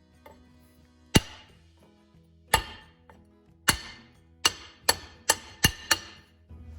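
Hammer blows driving a new pinion seal into the nose of a Ford 8.8 differential housing. There are eight sharp, ringing metal strikes, a few seconds apart at first and then coming quickly near the end.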